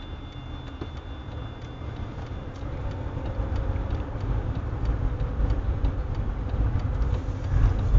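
Road noise inside a moving car's cabin: a low rumble that grows louder about three seconds in.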